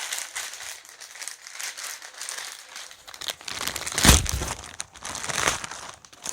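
Parcel packaging crinkling and rustling as it is handled and opened, with one loud thump about four seconds in.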